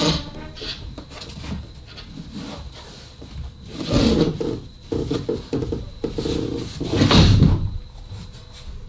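A pelmet being worked loose and pulled off the wall: irregular scraping and knocking, loudest about four seconds in and again around seven seconds in.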